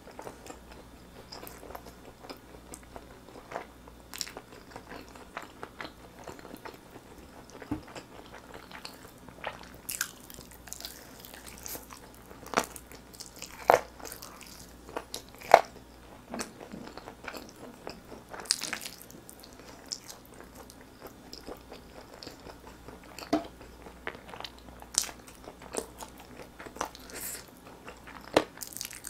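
Close-miked biting and chewing of grilled chicken drumsticks: meat pulled off the bone and chewed, with irregular sharp clicks and smacks of the mouth, the loudest a little past halfway.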